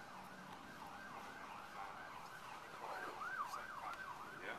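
Emergency vehicle siren in a fast up-and-down yelp, about three sweeps a second, growing louder in the second half.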